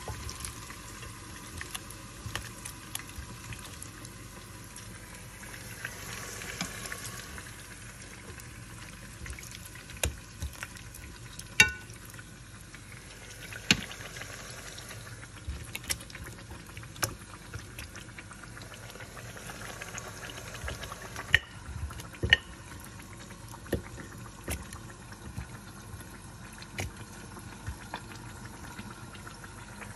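Marinated goat meat sizzling in the hot pot of an electric multicooker, with metal tongs clicking and knocking against the pot and the meat now and then.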